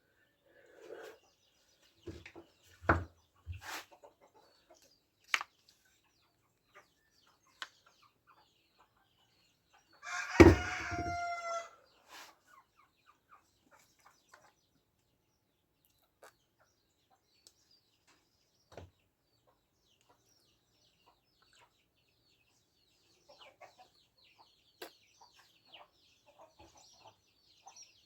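A rooster crowing once, about ten seconds in, the loudest sound here. A few sharp clicks and knocks come before it, and faint high chirps near the end.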